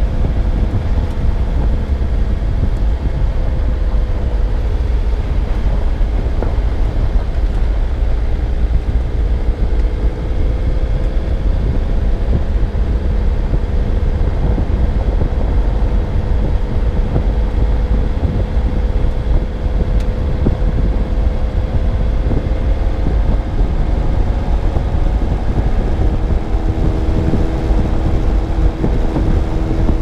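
Car driving along a road, heard through a GoPro mounted on the car: a heavy low rumble of road and wind noise with a steady engine hum that drifts slightly in pitch.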